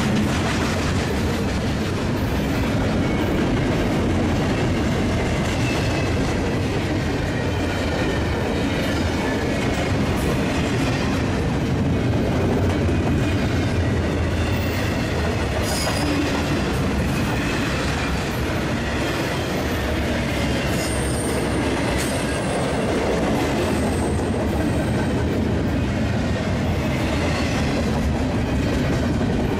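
Freight train cars rolling past: a steady rumble with wheels clacking over the rail joints, and faint high wheel squeals about two-thirds of the way in.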